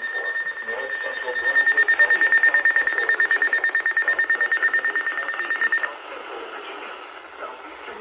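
Weather alert radio alarm sounding: a steady, high electronic tone that turns into rapid beeping and cuts off suddenly about six seconds in, signalling a received warning.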